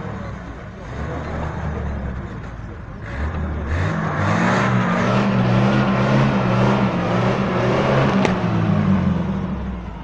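Engine of a trophy-prepared UAZ off-roader straining as it climbs out of a muddy rut. The revs rise about three to four seconds in, hold high and loud for several seconds, then ease off near the end.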